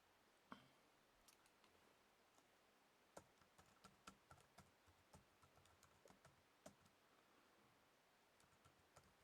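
Faint, irregular keystrokes on a computer keyboard: typing a few lines of code, with short pauses between runs of keys.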